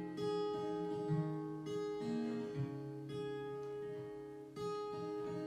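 Acoustic guitar playing a slow intro: a new chord struck about every second and a half and left to ring.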